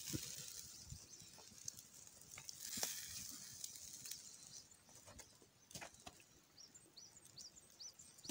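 Wood campfire crackling faintly under a wire grill, with scattered sharp pops over a soft hiss. Near the end comes a quick run of about six short, high chirps.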